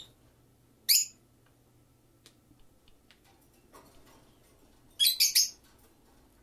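Peach-faced lovebird giving short, high-pitched chirps: one about a second in, then a quick run of three near five seconds, with faint small clicks between.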